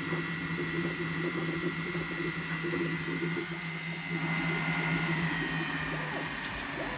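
Elegoo Neptune 4 Pro 3D printer running with a steady high-pitched squeak over a low motor hum. The squeak drops slightly in pitch and the hum shifts about five seconds in, as the printer's movement changes.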